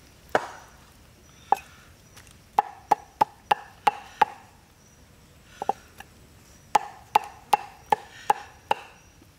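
Cleaver chopping cooked cow stomach (tripe) on a wooden chopping block: sharp knocks with a short ring. There are two runs of about six strokes at roughly three a second, and a few single knocks between them.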